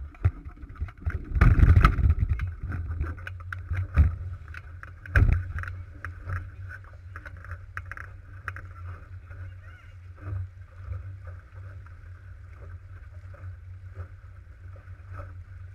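Wind buffeting the microphone of a sailing dinghy beating upwind, over the hiss of water rushing along the hull. Several knocks and thumps come in the first few seconds, the loudest about a second and a half in, then the sound settles to a steadier wind and water noise.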